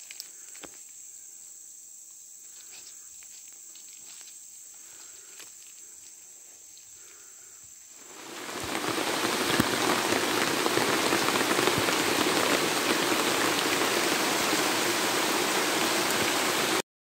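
Insects trilling steadily in rainforest undergrowth, with footsteps and light rustles on dry leaf litter. About eight seconds in, heavy tropical rain takes over as a loud, even hiss on the forest canopy, then cuts off abruptly just before the end.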